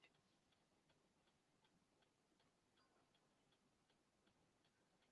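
Near silence, with very faint, evenly spaced ticks, about three a second.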